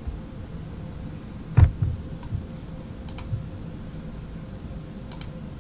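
Computer mouse clicks: a low knock about one and a half seconds in, then two faint sharp clicks near three and five seconds in, over a faint steady hum.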